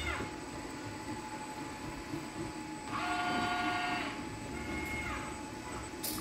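Kawasaki industrial robot arm's servo motors whining as the arm moves. The whine falls away just after the start, holds a steady pitch for about a second near the middle, then comes back briefly and glides down. A faint steady hum lies beneath it.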